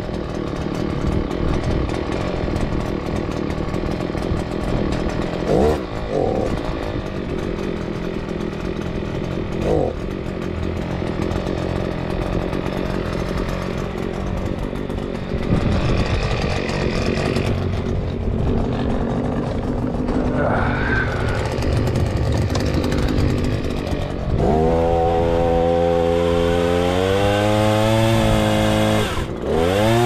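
Two-stroke engine of an Echo PAS-280 power head with a pole saw attachment, running steadily. Near the end it is revved up, its pitch rising, then drops and rises again.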